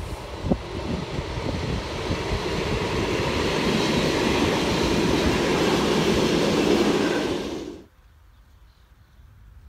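TPF electric regional train passing close by, the rumble of its wheels on the rails growing louder as it comes alongside. The sound cuts off suddenly about eight seconds in, leaving only a faint low rumble.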